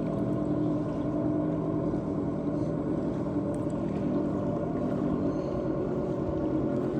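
A motor running steadily with a humming tone, which shifts slightly in pitch about five seconds in.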